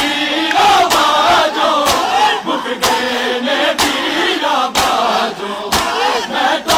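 A crowd of men chanting a mourning lament together while beating their chests in unison (matam), a sharp collective slap about once a second.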